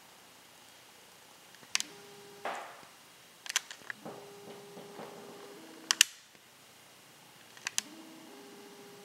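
Video camera's zoom motor whirring in short steady runs, some starting with a brief rising whine, with sharp clicks from handling the camera between them.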